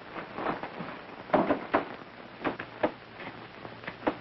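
About half a dozen short clinks and knocks of crockery and cutlery at a breakfast table, spread out over a few seconds, over the steady hiss of an old film soundtrack.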